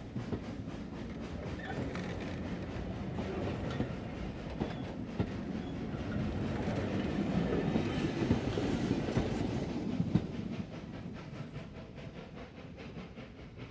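A train labouring up a steep grade, with a dense rumble and repeated clanks and clacks of wheels and couplings. It swells to its loudest about two-thirds of the way through, then drops away sharply.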